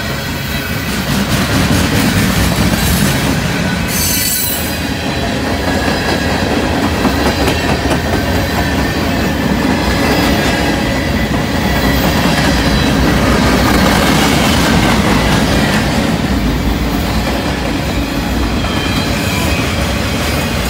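Freight train cars rolling past close by: a steady, loud rumble and rattle of steel wheels on the rails, with thin wheel squeals above it and a brief sharp screech about four seconds in.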